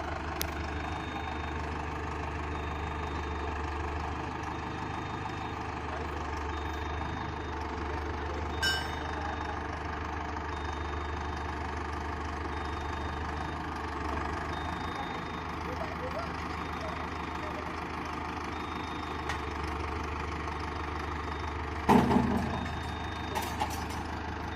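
A heavy vehicle engine idling steadily. A short knock comes about 9 seconds in, and a loud metallic clank with a brief rattle near the end.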